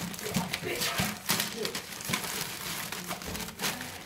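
A plastic bin bag crinkling and rustling in quick, irregular scrunches as a ferret scrambles about inside it.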